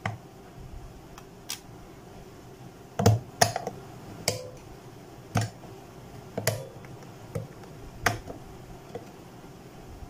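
Sharp plastic clicks and knocks as AA batteries are fitted into the battery compartment of a small plastic mini air cooler and its cover is handled. There are about nine separate clicks, the loudest about three seconds in.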